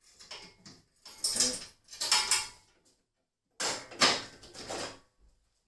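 Metal clanking and rattling in four or five short bursts, about a second apart, as a Jeep Wrangler TJ's hood lock and hood latches are worked open.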